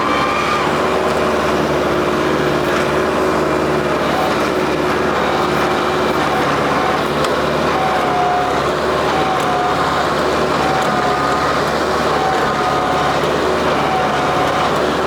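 New Holland WorkMaster 55 tractor's diesel engine running steadily under work while it digs with its front-mounted stump bucket grapple. A higher whining tone comes and goes in short spells in the second half.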